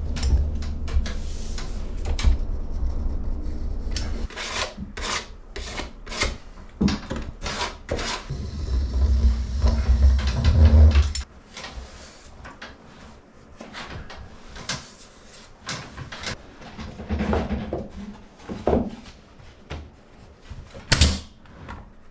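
Hand scraping and rubbing on wood in repeated strokes, loud for about the first half and stopping abruptly, then quieter scattered clicks and knocks of hand work. Near the end comes one sharp crack, a pneumatic brad nailer firing.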